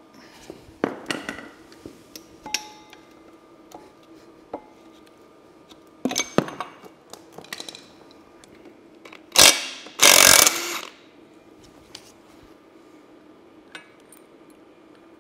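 A screwdriver prying at the cap on an Allis-Chalmers D17 final drive housing: scattered metal clicks, taps and scrapes. About nine and ten seconds in come two loud, harsh bursts of noise, each lasting under a second.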